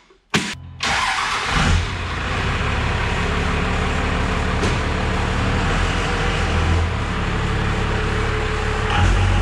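Two sharp knocks, then a 1998 Dodge Ram 2500's 12-valve Cummins diesel starts about a second in and runs at a steady idle.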